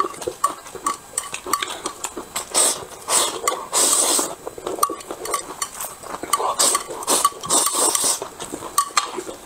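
Hot dry noodles being slurped up in several long slurps, the longest about four seconds in and again around seven to eight seconds in, with chopsticks clicking and scraping on a plate throughout.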